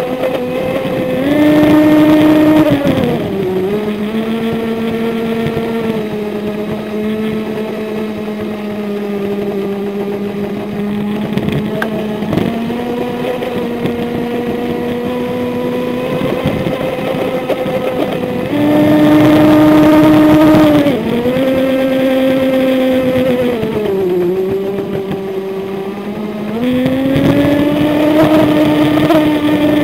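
HobbyKing Bolt twin-hull RC boat's brushless electric motor whining, heard from on board, its pitch rising and falling with the throttle several times; the higher stretches, each a few seconds long, are also louder. Water rushing and spraying past the hull hisses underneath.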